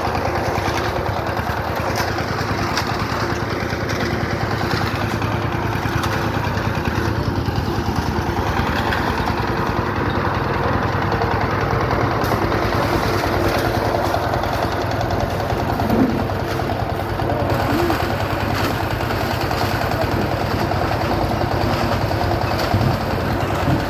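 A small engine running steadily at an even speed, with a couple of brief knocks.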